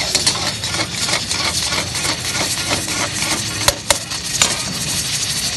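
Flat metal spatula stirring and scraping chicken pieces through sizzling oil in a large wok, about three strokes a second. Three sharp metal clinks come near the middle.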